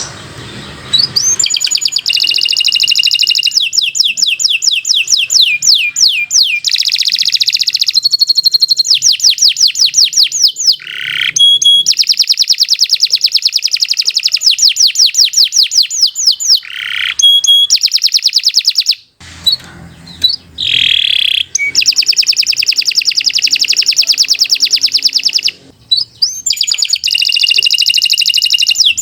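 Domestic canary singing a long, continuous song of fast, high-pitched trills and rolls, broken by a couple of short pauses.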